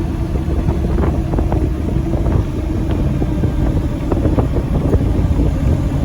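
Cummins diesel truck driving, its engine giving a steady low drone mixed with road and wind noise.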